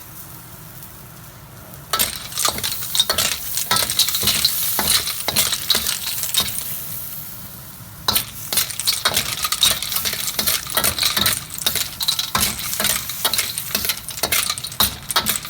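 Clams and green onions sizzling in garlic butter in a hot pan while being stirred, the utensil and shells clinking and scraping against the pan. It starts about two seconds in, dies down for a moment, and picks up again with dense clinking about eight seconds in.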